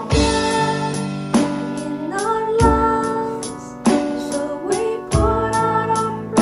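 Female voices singing a slow worship song over keyboard and electronic drums. Heavy drum hits land about every two and a half seconds, with lighter hits between them.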